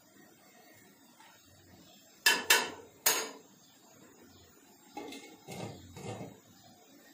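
Three sharp metal clinks on a stainless steel cooking pot, then a glass lid is set on the pot and shifted on its rim with a few softer clunks.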